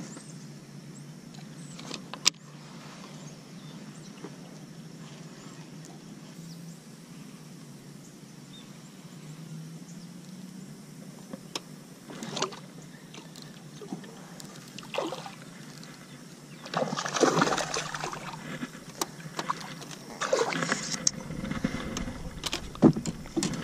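Electric trolling motor humming low and steady for most of the time, with a few clicks from a baitcasting reel. In the last several seconds a hooked bass splashes and thrashes at the surface beside the boat, with some sharp knocks.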